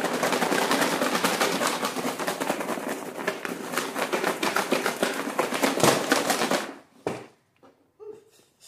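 Potting soil mix being shaken hard in a container, a loud, dense, rapid rattle of grit and chunks that stops abruptly near the end, followed by one knock.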